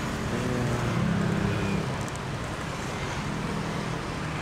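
Steady roadside traffic noise with a low vehicle hum, loudest between about one and two seconds in.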